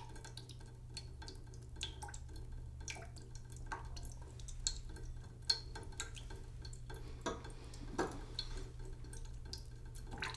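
Water running slowly into a cooking pot in a sink: irregular drips and splashes, with a steady low hum underneath.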